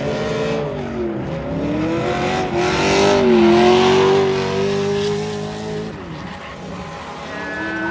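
Drift cars passing on track: engines revving hard with the pitch rising and falling and held high for a while, and tyres screeching. Loudest about three to four seconds in, then dropping away before another rev rises near the end.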